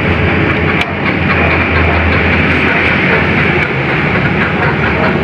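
Single motorcycle engine, freshly fitted with a 28 mm Koso carburetor, running steadily during a test of the new carburetor's fuel mixture.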